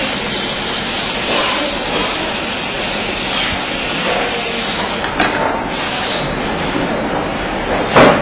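Steady loud hiss of background noise, with a few light clicks about five seconds in and a sharp knock near the end, the loudest sound.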